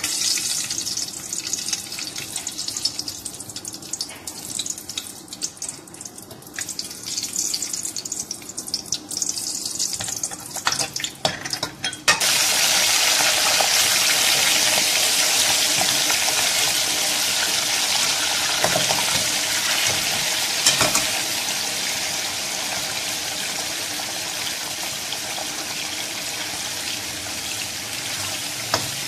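Whole garam masala crackling in hot oil in a metal kadai, with a ladle scraping the pan. About twelve seconds in, raw chicken pieces go into the oil and a loud, steady sizzle takes over, easing slightly as the chicken is stirred.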